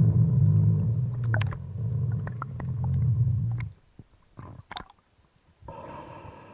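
Underwater recording: a loud, low pulsing rumble that cuts off abruptly a little over halfway through, with scattered sharp clicks, followed near the end by a fainter steady hum with a clear tone in it.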